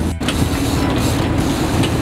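Sportfishing boat's engine running steadily, under a wash of wind and water noise.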